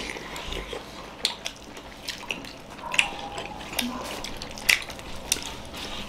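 Several people eating steamed momos by hand: wet chewing and mouth smacks, with scattered short clicks.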